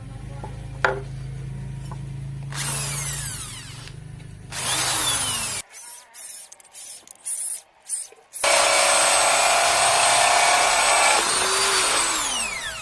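A high-speed electric power tool working wood, run in several bursts. Each burst ends with a falling whine as the motor spins down. The longest and loudest run comes in the second half and winds down near the end.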